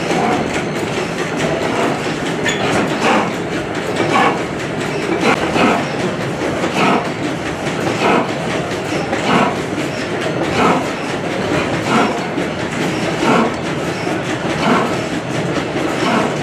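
Foos 40 hp horizontal gas engine running, a steady mechanical clatter with a heavy regular beat about every second and a third.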